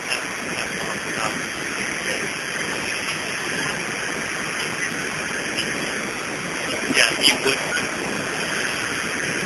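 Steady rushing noise of a small airplane in flight, heard through the caller's phone line. A voice speaks briefly near the end.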